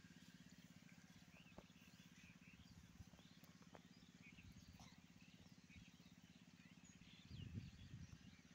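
Near-silent rural ambience: faint, scattered short bird chirps over a steady low hum, with a few brief low rumbles near the end.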